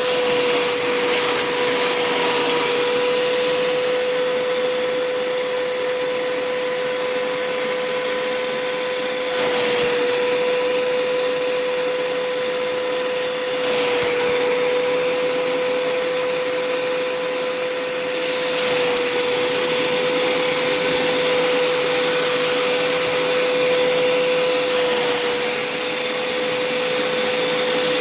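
Hoover Power Scrub Deluxe carpet cleaner running with its upholstery tool on fabric: a steady whine and rush of suction, pulling spray water and dirt out of the upholstery. The sound shifts slightly every few seconds as the tool is pushed over the couch.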